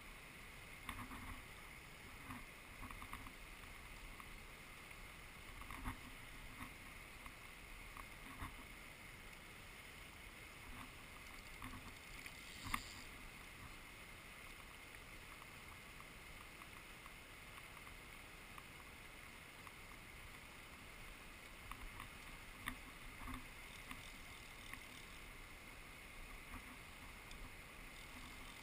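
Faint steady rush of a fast river, with scattered small knocks and clicks, the sharpest about halfway through.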